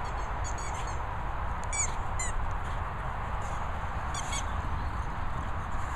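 A blue squeaky dog toy squeaking in a British bulldog's mouth as the dog bites down on it. It gives short high squeaks in quick clusters: several near the start, two around two seconds in, and a pair about four seconds in.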